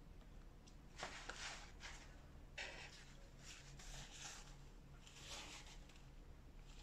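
Faint paper napkin rustling in several short crinkly bursts as it is unfolded and wiped across the mouth.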